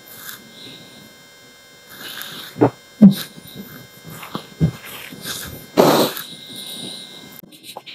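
A few short coughs, followed by the rustle and flap of a cotton baby garment being shaken out, the loudest sound, about six seconds in.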